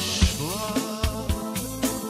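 Azerbaijani garmon (button accordion) playing an instrumental melody over a steady drum beat.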